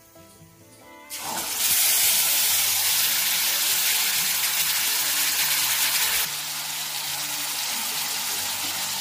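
Tamarind soaked in water hitting hot oil in a kadai: a sudden loud sizzle starts about a second in, eases a little after about six seconds and keeps on frying.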